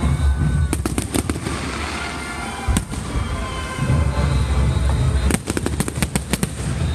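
Aerial fireworks going off in quick volleys of sharp bangs: a run of about five about a second in, one more partway through, and a dense cluster near the end, over a steady low rumble.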